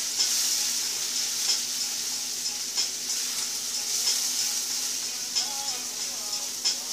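Bell peppers and vegetables sizzling in butter in a skillet, with a steady frying hiss, stirred with a silicone spatula that clicks and scrapes against the pan every second or so.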